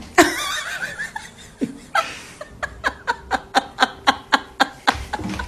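A person laughing in a quick, regular run of short bursts, about four a second, from about two seconds in. Just before it, right at the start, comes a brief wavering cry.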